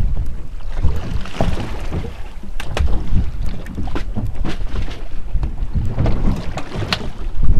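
Wind buffeting the microphone on a boat at sea, with water slapping against the hull and several short, sharp knocks.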